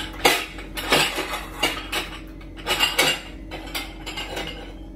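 Ceramic plates clinking and clattering against each other as a plate is taken out of a stack in a low kitchen cabinet: a series of sharp clinks and knocks.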